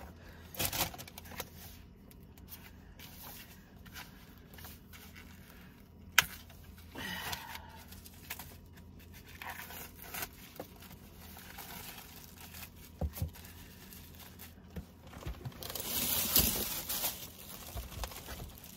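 Plastic film being torn and peeled off a packaged tray of raw chicken thighs, with crinkling of the wrapping and a few sharp clicks. Near the end comes a longer, louder tearing rustle as the wrap comes away.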